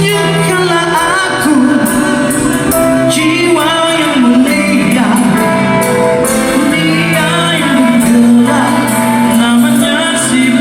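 Live rock band playing a song, with a lead vocal singing a wavering melody over the full band.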